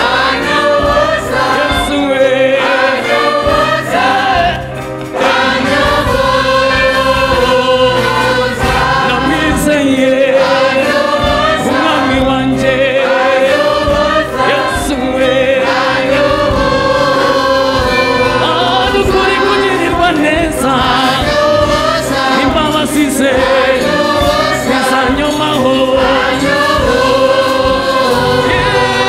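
Church choir singing a gospel song in several voices over a steady low beat and bass line, with a brief drop in level about five seconds in.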